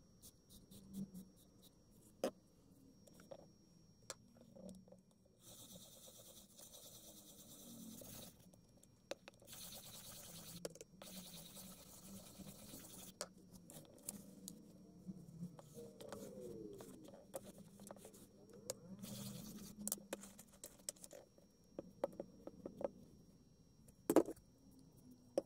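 Small stiff brush scrubbing leather cleaner foam into the leather case of an old tape measure, a scratchy scraping in bursts of a few seconds, with a few sharp knocks as the case is handled.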